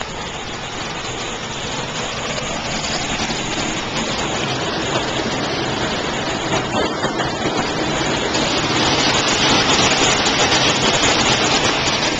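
Steady rain falling and pattering on the ground and puddles, growing louder over the last few seconds.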